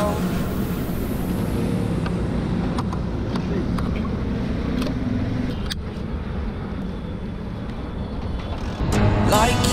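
Steady low rumble of vehicle engines and traffic at a fuel station forecourt, with a few sharp clicks, the loudest about six seconds in. Music comes back in near the end.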